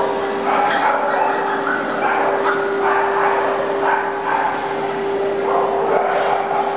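Dogs barking repeatedly over a steady motor whine from a grooming dryer.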